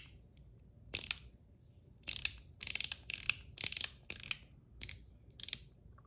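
Blasted-zirconium One Pal mechanical fidget slider being slid back and forth, its spring-and-ball detents snapping in short crisp clicks. About eight slides, coming in quick succession through the middle.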